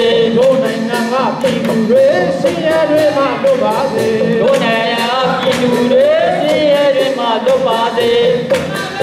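Amplified singing into microphones, a woman's voice with a group joining in, over a backing track with a steady beat.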